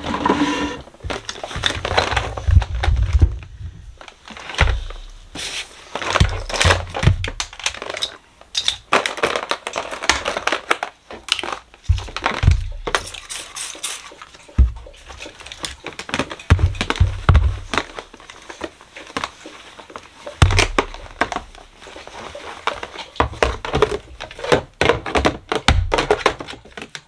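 Handling noise of sorting by hand: white plastic storage baskets and hair styling tools being lifted, moved and set down, with many quick knocks and clicks and scattered low thumps.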